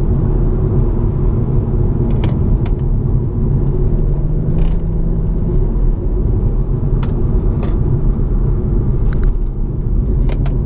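BMW M140i's turbocharged straight-six and M Performance exhaust heard from inside the cabin, running steadily while cruising, with road rumble underneath. A few faint clicks are heard along the way.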